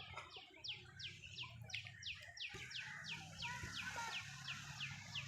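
A bird repeating a short, high chirp that slides downward, about three times a second, in an even run over a low background hum.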